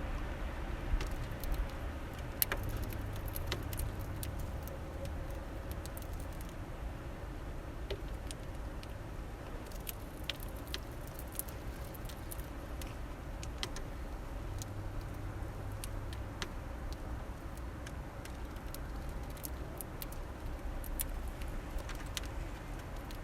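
Small finches feeding at a bird feeder: scattered light ticks and taps of beaks and feet on seed and the feeder, over a low steady rumble.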